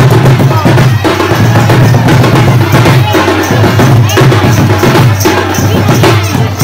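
Loud folk drumming and percussion from a street procession, dense and continuous with sharp drum strokes.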